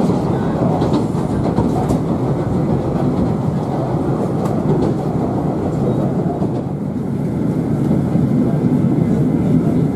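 Running noise of a Moka Railway diesel railcar heard from inside the passenger cabin: a steady rumble of wheels on the rails and the engine.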